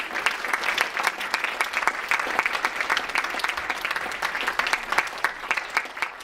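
Audience applauding to welcome a speaker, the clapping thinning out toward the end.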